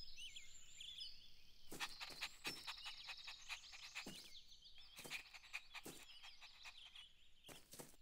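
Faint birdsong ambience: several small birds chirping and trilling in high, quick notes, with scattered soft clicks.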